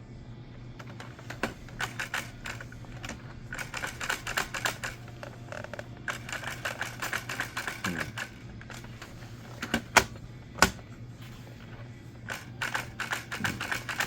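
Bursts of rapid clicking and rattling from small hard plastic parts being handled and worked on, with two sharp, louder clicks about ten seconds in. A steady low hum runs underneath.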